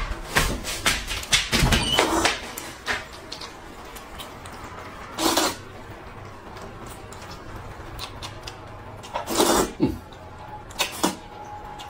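Noodles being slurped up noisily from a bowl of soup, in a run of slurps during the first two seconds, another at about five seconds and more near the end, with quiet stretches between.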